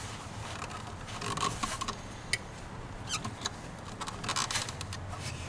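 Plastic and rubber intake parts rubbing, scraping and clicking in short bursts as a cone air filter and its intake tube are wiggled and pushed into place by hand.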